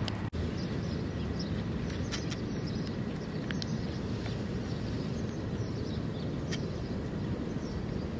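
Steady outdoor background noise, heaviest in the low end, with a few faint clicks scattered through; it drops out for an instant just after the start.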